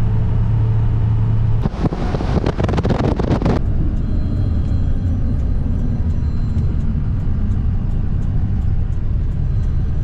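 Motor vehicle running with a steady low hum, then a loud rushing noise for about two seconds, settling into a steady low rumble as it drives.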